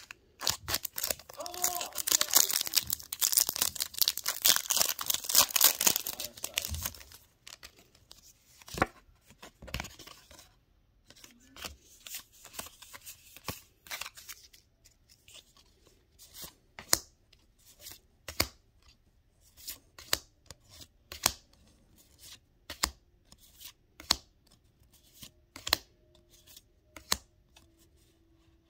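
Crinkly plastic packaging being torn open for about seven seconds. Then come short sharp clicks and snaps, roughly one a second.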